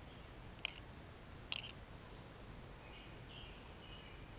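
Quiet room tone with two light clicks about a second apart as a cleaning wire is worked through a small carburetor jet held in the fingers. Faint high chirps sound in the background later on.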